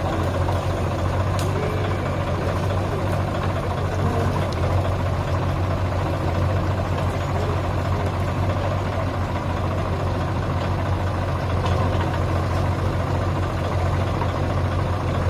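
Diesel engines of a farm tractor and a JCB backhoe loader running steadily: an even low hum with no revving.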